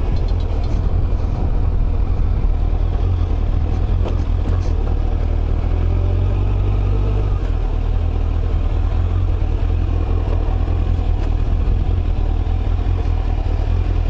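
Motorcycle riding at a steady speed: a constant low engine rumble mixed with wind noise.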